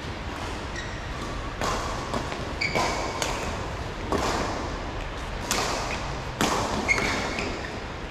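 Badminton rackets striking a shuttlecock in a fast doubles rally: about six sharp hits, roughly a second apart, with a couple of short high squeaks between them.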